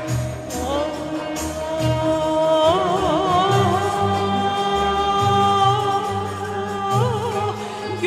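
A woman singing a slow Turkish folk song, holding long notes and ornamenting them with quick turns, over instrumental accompaniment.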